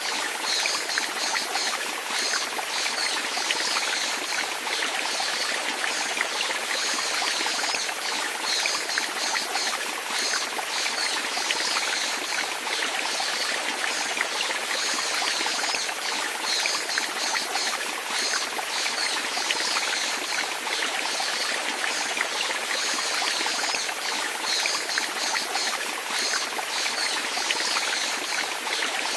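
Running water flowing and trickling steadily, like a small stream, with small splashes flickering over an even rush.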